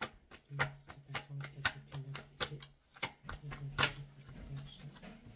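A deck of tarot cards being shuffled by hand: a quick, irregular run of crisp clicks and slaps as the cards are worked. A low steady hum sits under it for most of the time.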